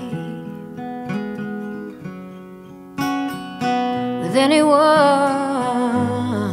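Acoustic guitar picking and strumming a slow song; about four seconds in a voice sings one word and holds it with vibrato.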